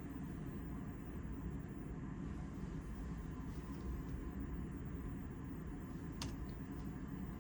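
Steady low background hum of room ventilation, with a single sharp click about six seconds in.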